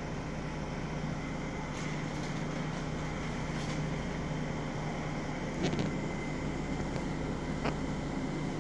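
Steady low mechanical hum, with a few faint clicks and taps.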